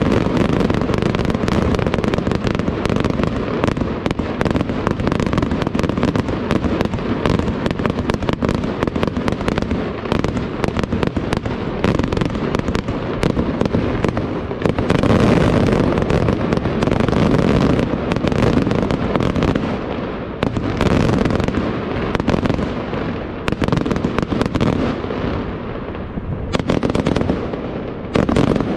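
Fireworks display going off in a dense, continuous barrage: many bangs and crackles in rapid succession with a deep rumble underneath, thinning a little near the end.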